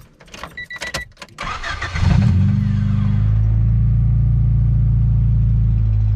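Honda Civic EG hatchback engine cranking briefly and starting about two seconds in, after a few clicks and a short beep, then settling into a steady idle. The start comes with the new main relay's kill switch turned on, showing the install works.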